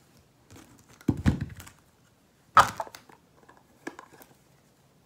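Makeup product containers handled and set down: a dull thump about a second in, a sharp clack a second and a half later, then a few light clicks.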